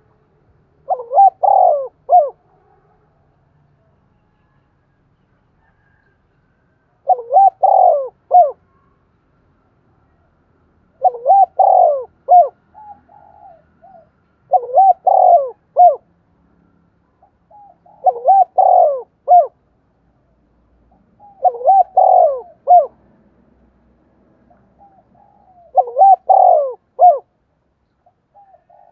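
Spotted dove cooing: seven phrases of three or four low, looping hoots, each about a second and a half long. After a six-second gap between the first two, they come every three to four seconds, with a few softer coos between some of them.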